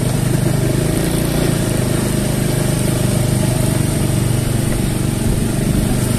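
Small motorcycle and scooter engines running steadily at low speed as the bikes ride slowly in a line.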